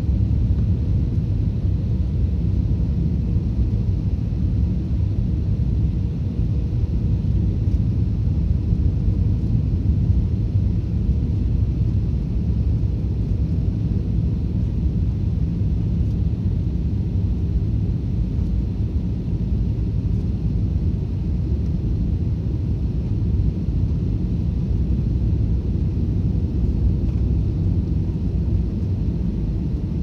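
Airliner cabin noise on a night landing approach in strong wind: a steady low rumble of jet engines and rushing air heard from a passenger seat.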